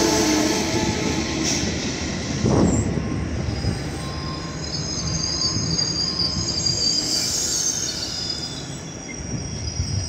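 Passenger cars of an arriving Amtrak train rolling slowly past, with high-pitched wheel and brake squeal that comes and goes, and a single clunk about two and a half seconds in.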